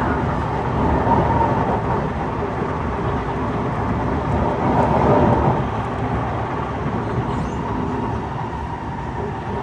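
Kawasaki C151 metro train running between stations, heard from inside the carriage: a steady rumble of wheels on rails with a faint steady whine on top, swelling slightly about halfway through.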